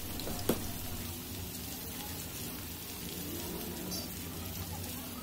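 Chopped garlic sizzling in hot oil in an aluminium wok, a steady crackling hiss, being fried until crisp. One sharp knock about half a second in.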